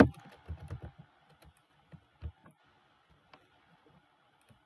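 Computer keyboard keystrokes: a quick run of clicks in the first second or so, then a few scattered clicks.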